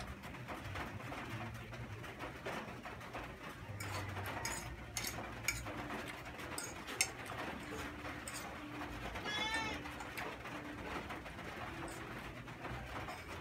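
Mouth sounds of noodles being slurped and eaten, with a couple of sharp clicks of the fork against the plate around the middle. A pigeon coos on and off behind the eating.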